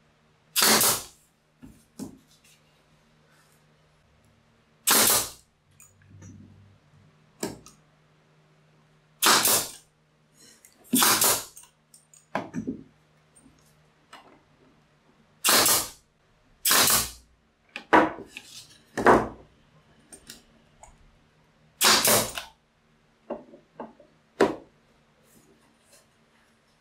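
A brad nailer firing nails into the corners of a thin plywood box, about nine sharp shots spaced irregularly a second to several seconds apart, with lighter knocks of the wood being handled between them.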